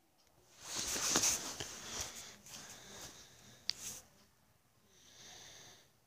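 Rustling handling noise with a few sharp clicks as a Samsung flip phone is held and switched on, followed near the end by a fainter, higher tone.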